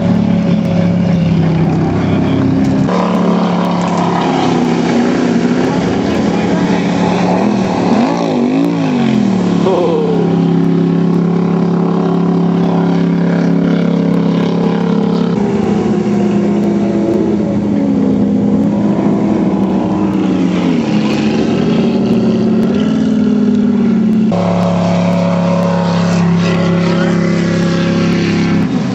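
Jet boat engine running hard, its pitch swinging up and down as the boat is throttled through tight slalom turns, over a steady engine drone.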